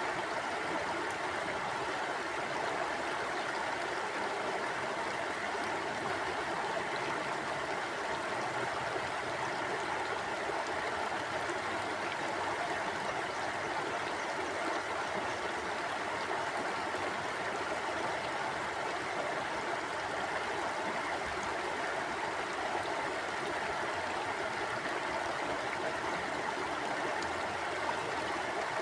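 Mountain river flowing over rocks: a steady, even rush of water with a gurgling texture.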